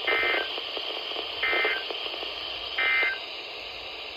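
Three short bursts of warbling EAS (SAME) data tones, about 1.3 s apart, over a steady radio hiss: the end-of-message code a NOAA Weather Radio transmitter sends three times to close the alert.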